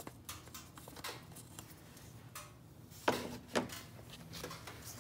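Light plastic clicks and handling knocks from hands working around a car's engine bay and its oil filler cap, with two sharper clacks a little past halfway, over a faint low hum.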